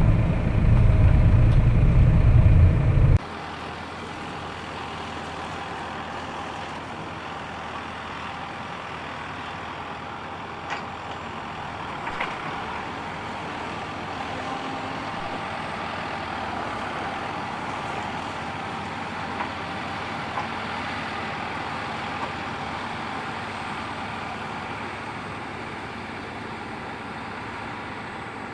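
Tractor engine running, loud and low for about the first three seconds, then a sudden change to a quieter, steady machine drone with a few faint clicks.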